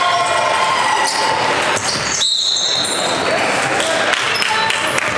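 Ball bouncing on a hard floor in a large, echoing hall, with voices in the background.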